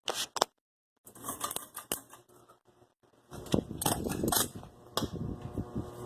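Irregular metallic clattering and sharp clicks, broken by brief silent gaps, turning into a steady mechanical hum about five seconds in.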